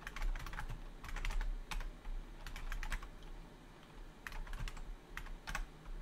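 Typing on a computer keyboard: several quick bursts of keystrokes with short pauses between them, as shell commands are typed and entered. A low hum runs underneath.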